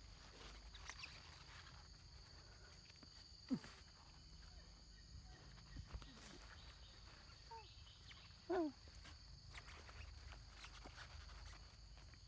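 Monkeys calling: a short falling call about three and a half seconds in and a louder, pitched call of about a third of a second about eight and a half seconds in, over a steady high insect drone.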